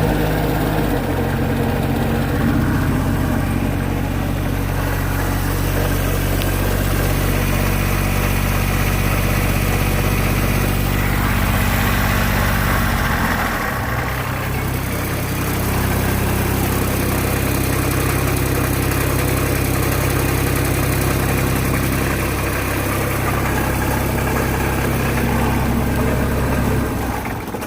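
Scag mower's Cat 1.1-litre three-cylinder diesel running steadily just after a fuel system repair, its note changing about halfway through, then shut off at the end. The owner puts a rattle from the back of the engine down to a bracket needing mending, not the bearings.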